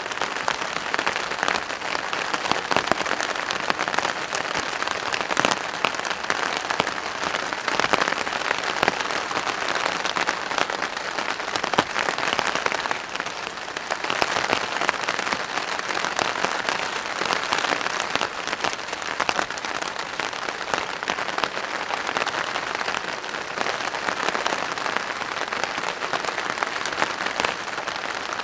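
Rain drumming steadily on a plastic patio tarp: a dense, even patter of drops that eases slightly for a moment about halfway through.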